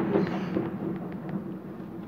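Far-off fireworks: a low rumble of distant bursts with a few faint pops, dying down over the first second.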